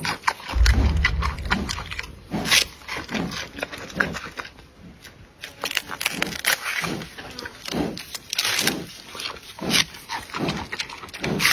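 Giant panda chewing a bamboo shoot: irregular crunches and cracks as it bites and strips the shoot. A brief low rumble comes in near the start.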